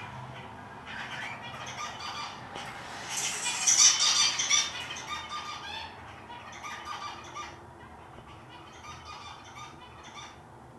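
Lovebirds and finches chirping and chattering together, with a burst of loud, shrill squawks about three to five seconds in before the calls thin out.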